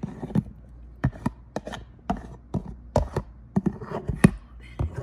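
A metal spoon tapping and scraping against a bowl and a plastic blender cup as pomegranate seeds are spooned in: an irregular series of sharp taps and clinks, a few a second.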